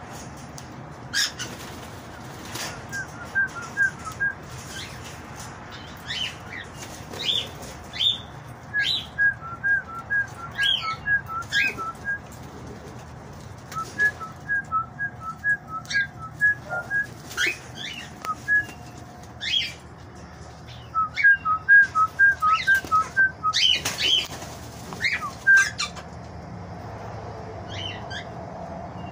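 Aviary parrots, eastern rosellas and cockatiels, calling. Runs of short whistled notes alternate between two pitches at about four or five a second and come four times, with sharp high chirps scattered among them.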